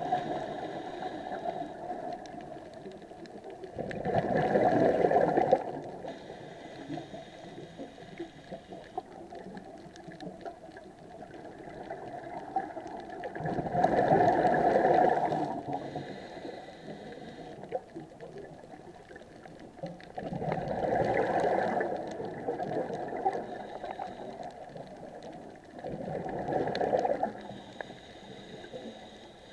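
Scuba diver's regulator underwater: four bubbling bursts of exhaled air, each about two seconds long and roughly six to seven seconds apart, with a softer hiss between them.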